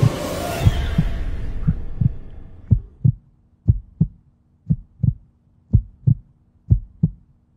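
Heartbeat sound effect: low double thumps, lub-dub, about once a second. A dark rumbling drone underneath fades away over the first three seconds, leaving the heartbeat and a faint hum.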